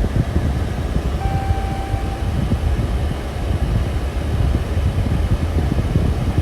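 Steady low rumble of background noise, with one short electronic beep lasting about a second, a little over a second in.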